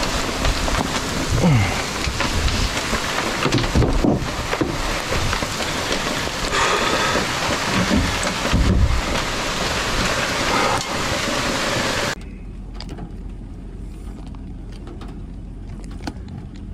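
Heavy rain falling, a dense steady hiss with scattered low thumps. About twelve seconds in it cuts off abruptly to a much quieter, muffled background.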